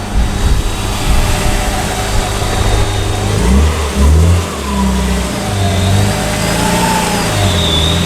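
Supercharged BMW E46 M3's straight-six engine running with a few revs, low and uneven, louder about four seconds in.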